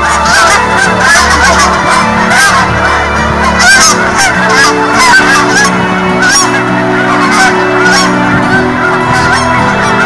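A large flock of Canada geese honking, many calls overlapping in a dense, unbroken chorus.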